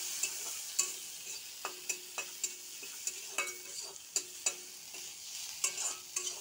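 Metal spatula stirring and scraping in a metal wok, clinking against the pan every half second or so, while paneer, onion and spices sizzle in hot oil with a steady hiss.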